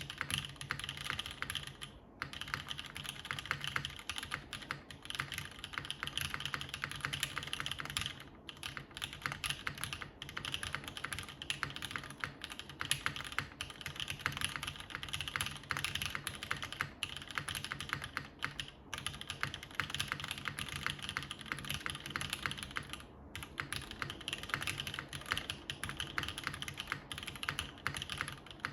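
Continuous fast typing on a custom tenkeyless mechanical keyboard with broken-in NovelKeys Cream linear switches on an aluminium plate, top-mounted, under GMK doubleshot keycaps. Brief pauses in the typing about 2, 8, 18 and 23 seconds in.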